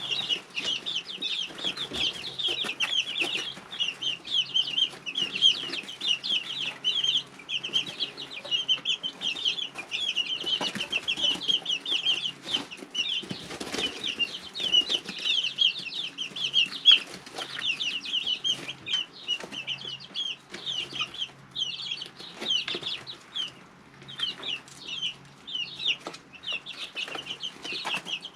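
Three-week-old chicks in a brooder peeping nonstop, many short high calls overlapping, with scattered soft knocks and rustles from the chicks moving about. A faint steady low hum runs underneath.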